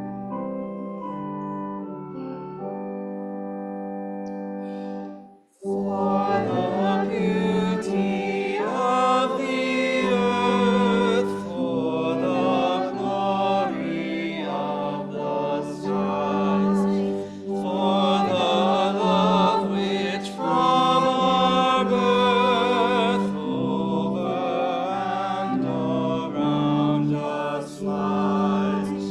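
Organ holding sustained chords as a hymn introduction, cutting off about five seconds in. A hymn is then sung with vibrato over sustained organ accompaniment.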